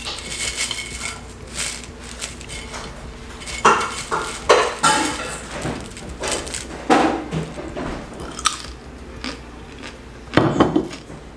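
Crisp oven-toasted coconut chips, baked with brown sugar, being bitten and chewed: dry crackling crunches in irregular clusters, loudest a few times, with a faint steady low hum underneath.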